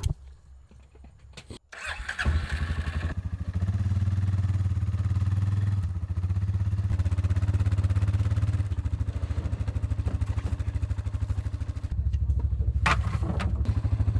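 Tractor engine starting about two seconds in, then running steadily with a fast, even pulse, its level shifting a few times.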